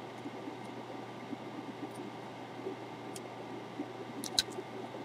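Steady hiss and hum of a fume extractor's fan running at the soldering bench, with a few faint clicks, two close together near the end.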